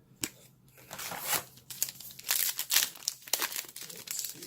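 Trading card pack wrapper crinkling and tearing as it is opened. After one click near the start, the sound runs as a quick string of short crackles from about a second in.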